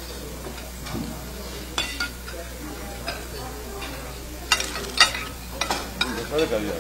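Spoon and fork scraping and clinking on a dinner plate while eating, with a handful of short sharp clinks, the loudest two about four and a half and five seconds in.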